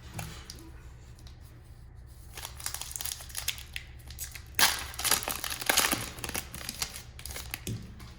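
Plastic wrapper of a trading-card pack being torn open and crinkled, a crackly rustling that starts a couple of seconds in, is loudest in the middle and dies away near the end.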